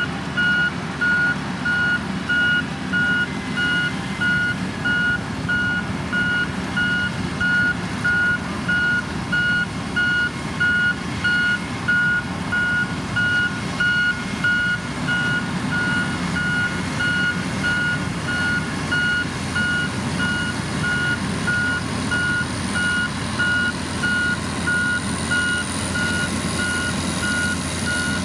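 Reversing alarm of a heavy construction machine beeping steadily about once a second with a single repeated tone, over the continuous low rumble of its engine as it backs up.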